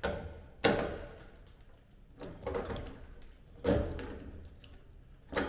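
About five separate knocks and clatters, each sudden and dying away quickly, as metal parts and tools are handled during panel work.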